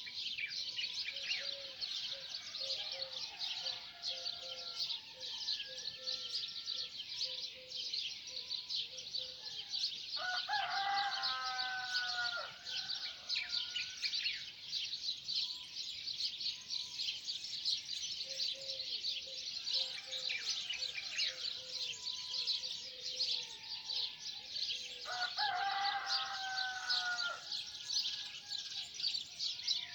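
A rooster crows twice, each crow lasting about two seconds, over a steady dense chorus of high-pitched chirping from small birds.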